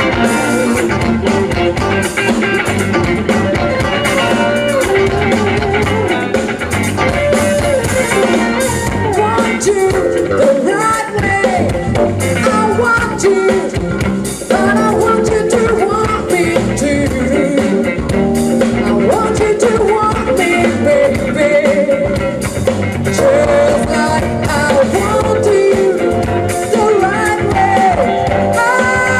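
Live band music: a woman sings lead over electric guitars and a drum kit.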